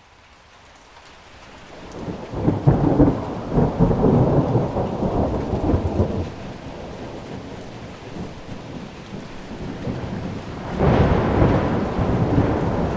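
Thunderstorm: steady rain hiss fading in, with a long rolling rumble of thunder about two seconds in and a second clap of thunder that starts suddenly near the end.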